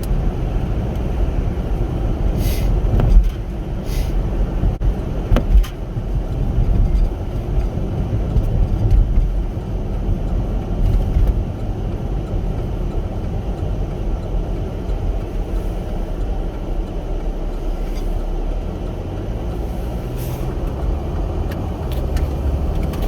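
Road and engine noise inside a moving car's cabin: a steady low rumble, with a few brief knocks.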